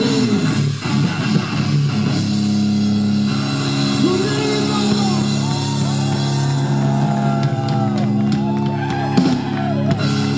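Live rock band holding a final distorted guitar chord that rings out at the end of a song, with voices shouting and whooping over it in the second half.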